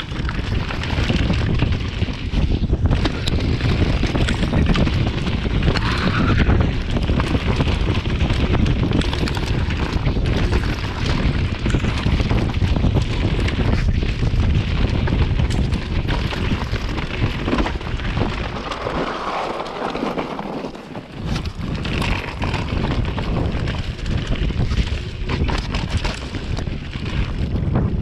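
Wind buffeting the microphone of a camera on a Trek mountain bike riding fast downhill over muddy singletrack, mixed with tyre noise on dirt and frequent knocks and rattles from the bike over roots and rocks. The low rumble drops away briefly about two-thirds of the way through, then returns.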